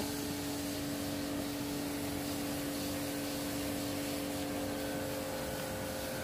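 Steady hum of a running machine motor at one constant pitch, with an even hiss over it.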